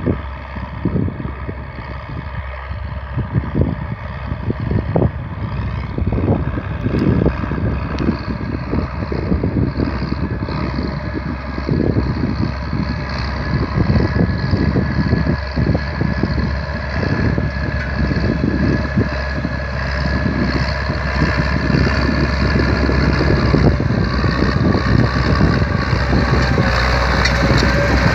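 IMT 5106 tractor's diesel engine running steadily under load as it pulls a disc harrow across ploughed ground, getting gradually louder as it draws near.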